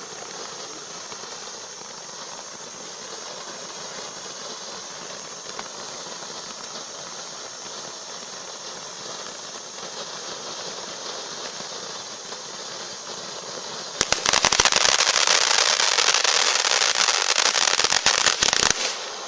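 Cosmos Stjernetårnet fountain firework hissing steadily as it sprays sparks. About fourteen seconds in it breaks into a loud, dense crackling that lasts about five seconds and then cuts off suddenly.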